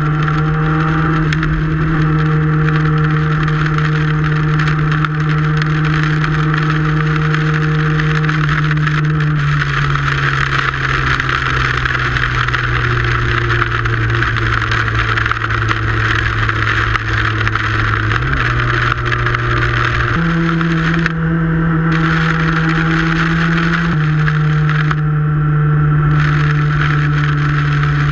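Yamaha YZF-R6 inline-four engine running steadily at cruising speed, its note dropping about a third of the way in and climbing back in steps later on. Wind and rain rush over the tank-mounted camera's microphone throughout.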